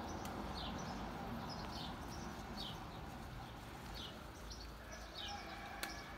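A small bird calling over and over outdoors: short, high chirps that each drop in pitch, repeated every half second to a second.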